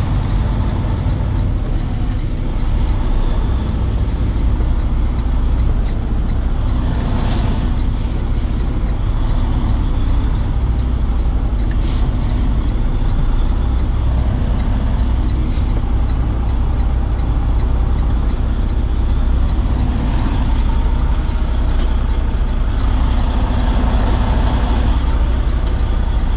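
Semi-truck diesel engine running steadily with a deep low rumble, heard from inside the cab while the rig creeps through a crowded lot, with a few short sharp noises, the loudest about 7, 12 and 15 seconds in.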